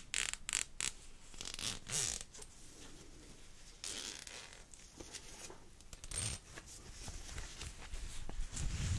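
Zipper of a small woven fabric pouch being worked open and shut in a run of short rasps during the first two seconds, then more scattered zip rasps and cloth handling through the rest.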